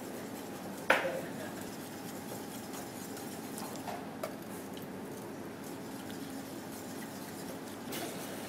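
Cubed butter being tipped into a stainless-steel saucepan of sauce base, with a whisk in the pan. A sharp metal clink with a short ring comes about a second in, then a few lighter clinks, over a steady low hum.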